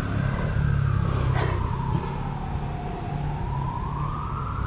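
Emergency vehicle siren wailing, its pitch slowly rising and falling over several seconds, over a low rumble. A brief sharp click about a second in.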